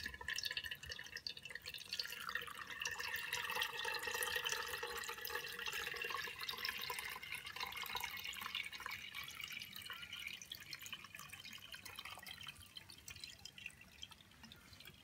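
Dashi stock trickling and dripping as it is poured through a paper-towel-lined metal sieve into a plastic jug. The flow dies down in the last few seconds to quieter draining drips.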